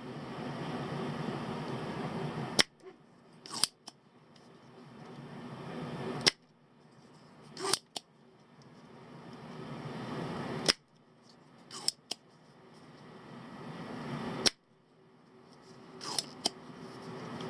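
Spring-loaded solder sucker (desoldering pump) being cocked and fired over and over while desoldering parts from a multimeter's circuit board: sharp snapping clicks in pairs about a second apart, repeating roughly every four seconds, with a hiss that swells between them.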